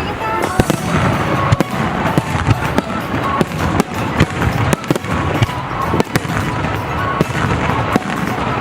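Fireworks going off in a rapid, irregular string of sharp bangs, several a second, with music playing underneath.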